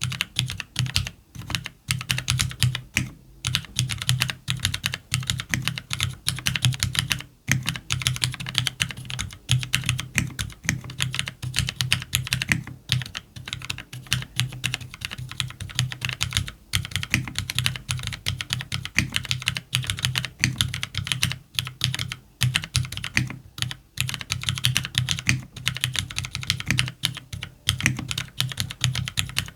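Continuous fast typing on a CannonKeys Devastating TKL mechanical keyboard with lubed Cherry MX Black linear switches, an FR4 plate and JTK keycaps. It is a rapid stream of keystrokes with a few short breaks.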